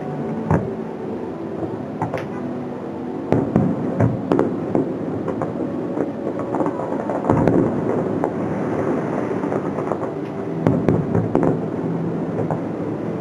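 Fireworks going off in a string of sharp bangs and crackles a second or more apart, with a cluster of cracks near the end, over music playing for the show.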